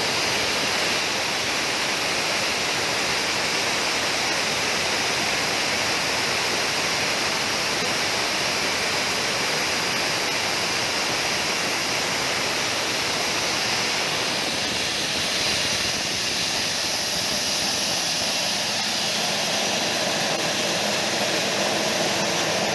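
Dry coffee huller running with a steady rushing machine noise as hulled coffee beans pour from its chute into a plastic basket. The noise changes character about two-thirds of the way through.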